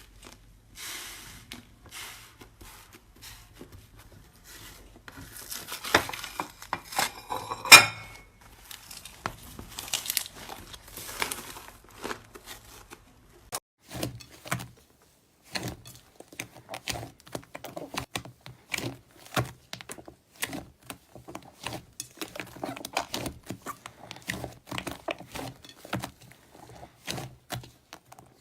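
Slime being squeezed and poked by hand, with squishing and crinkling. There is a sharp click about a third of the way in. After a short pause about halfway through, it gives a steady stream of small clicks and pops.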